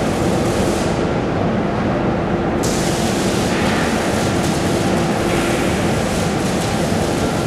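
Steady, loud machinery noise of a steel fabrication hall, a continuous rumble with a faint constant hum.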